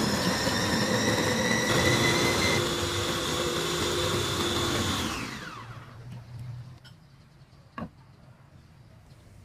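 Cosmos FP-313 electric food chopper's motor running as it purées a wet chilli, shallot and spice paste, then winding down with a falling whine about five seconds in. One short knock follows near the end.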